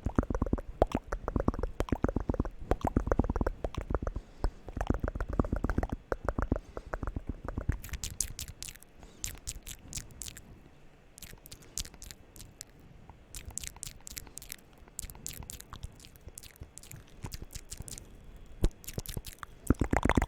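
ASMR mouth sounds: rapid, wet smacking for the first few seconds, then scattered crisp clicks with short pauses between them.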